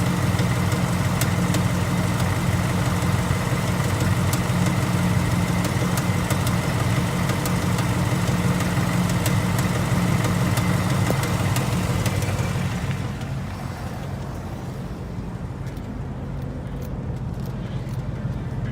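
2018 Ford Mustang GT's 5.0 Coyote V8 idling steadily, with a light knocking that the owner notices but says doesn't sound like the typical Coyote 'typewriter' tick. About 13 seconds in the sound becomes quieter and duller.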